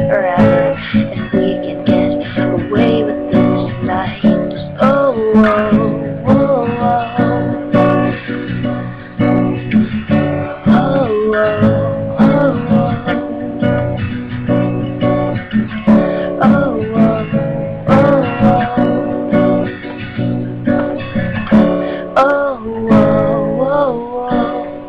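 Acoustic guitar strummed in a steady rhythm, playing out the end of the song, stopping right near the end.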